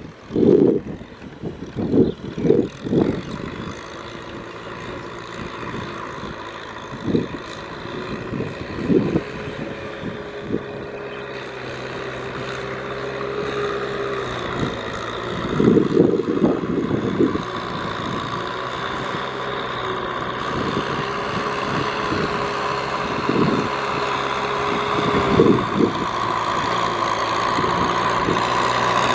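Tractor engine working in a muddy field, its pitch sagging and recovering under load and its sound growing louder toward the end, with clusters of low thumps near the start and around the middle.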